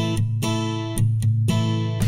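Background music of strummed acoustic guitar chords at a steady beat.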